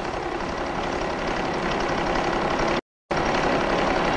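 Steady mechanical hum of a numerically controlled milling machine running, with a faint steady tone in it. The sound drops out completely for a split second a little before the end, then resumes.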